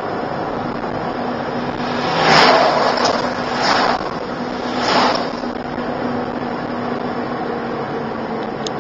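Steady engine and road noise inside a moving car's cabin, with three brief whooshes of oncoming vehicles passing close by, about two and a half, three and a half, and five seconds in.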